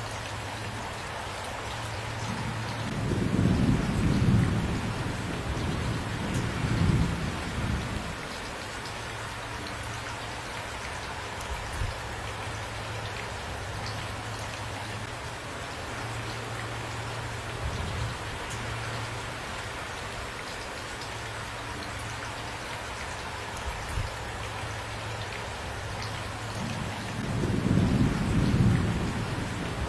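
Steady rain with rolling thunder: a long low rumble builds about three seconds in and dies away around eight seconds, smaller rumbles follow, and another long roll builds near the end.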